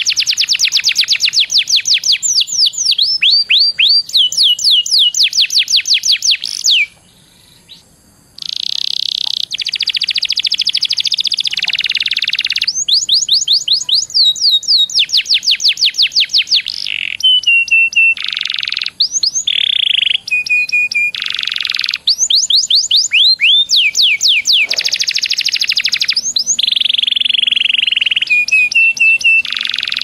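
Domestic canary singing a long, loud song: fast runs of repeated sweeping notes alternating with buzzing rolls, with a short pause about seven seconds in.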